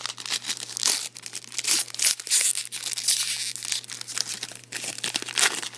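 Trading-card pack wrappers crinkling and tearing as packs are opened: a dense, irregular run of crackles.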